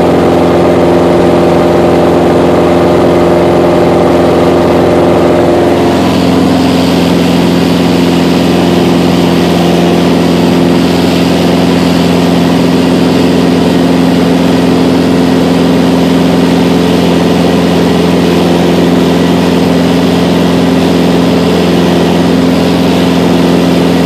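Mooney M20J's four-cylinder Lycoming engine and propeller running steadily in flight, heard from inside the cabin. About six seconds in, the tone shifts and more airflow hiss comes in.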